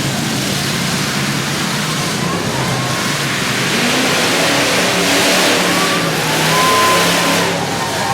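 Demolition derby cars revving their engines together in a dense, loud din, which swells about five seconds in.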